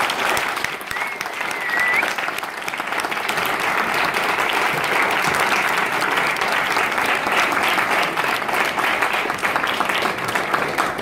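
An audience applauding steadily after a speech, dying away at the end, with a short high whistle about a second in.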